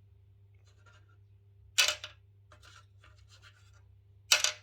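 Small screws from a tweeter teardown being handled and set down on a hard surface: two sharp clicks, one about two seconds in and one near the end, with faint scraping and rubbing between them.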